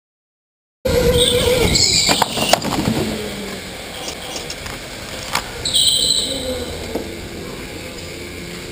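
Electric go-kart running flat out on an indoor track, heard from onboard: motor whine and tyre noise on concrete, with a few sharp knocks and two short high tyre squeals through the corner. The sound starts abruptly about a second in.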